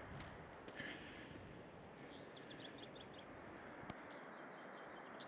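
Faint outdoor ambience: a steady low hiss with small birds chirping in a quick run of short high notes about two seconds in, and a single click near the end.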